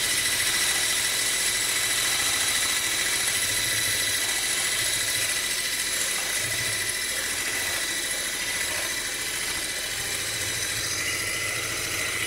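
Electric hand mixer running steadily, its beaters whipping egg whites into meringue in a stainless steel bowl, with a steady high motor whine.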